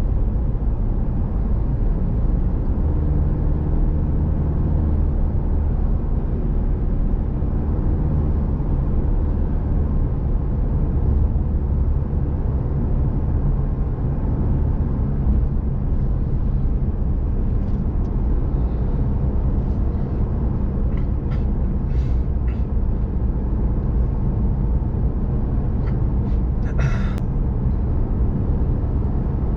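Diesel vehicle driving steadily on the highway: a continuous low engine and road rumble. A few light clicks come in the second half, with a brief sharper rattle near the end.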